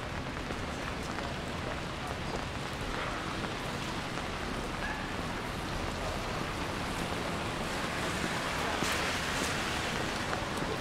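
Steady hiss of rain on a wet city street, with a louder swell of noise about nine seconds in.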